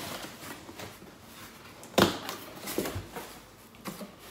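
Cardboard shipping box being opened by hand, its flaps pulled and bent back, with one sharp, loud noise about two seconds in and a few lighter cardboard scrapes and knocks after it.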